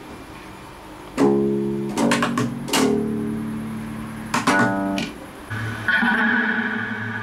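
Acoustic guitar being strummed. From about a second in, single chords come roughly a second apart, each left to ring, with a longer held sound near the end.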